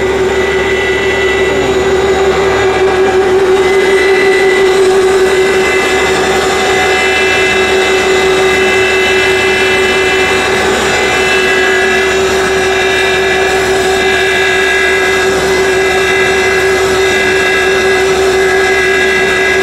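Serrated-blade grinding machine running with its grinding wheel spinning at a slow setup speed: a steady motor hum with a high whine above it.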